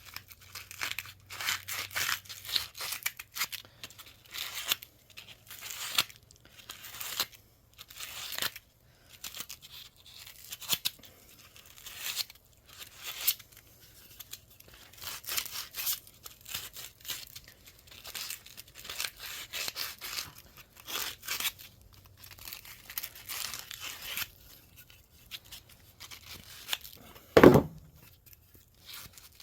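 Hand-sanding a wooden piece: irregular scratchy strokes of sandpaper on wood, about one or two a second. One loud knock near the end.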